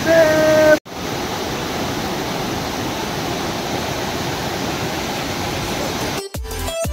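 Rushing water of a rocky mountain stream pouring over boulders, a steady even noise. Music starts near the end.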